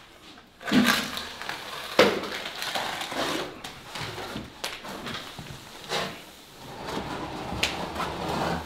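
A plasterer's straightedge (darby) scraping wet plaster across a wall in several long smearing strokes, spreading the fresh plaster and filling its holes. A sharp knock comes about two seconds in.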